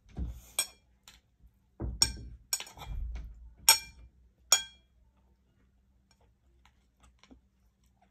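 Eating utensils clinking on dishware: about five sharp, ringing clinks over the first five seconds, with dull knocks among them.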